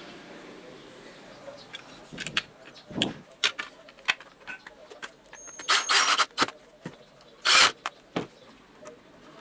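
Clicks, knocks and rustles of hard plastic parts as a jig saw's trigger switch, wiring and plastic handle cover are handled and fitted together, with a brief high squeak about five and a half seconds in.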